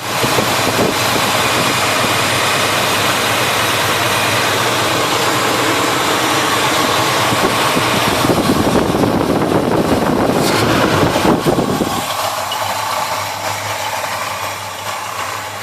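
Chevrolet 350 small-block V8 idling, with the rebuilt carburettor's choke working. The sound eases and quietens about twelve seconds in.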